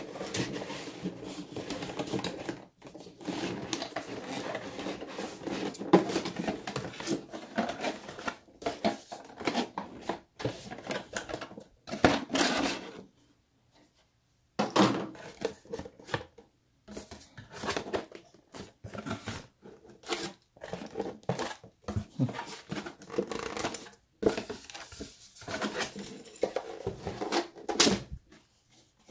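Cardboard box packing and the white plastic camera parts being handled and pulled out of a tight-fitting box: irregular scraping, rustling and light knocks, with a short pause about halfway.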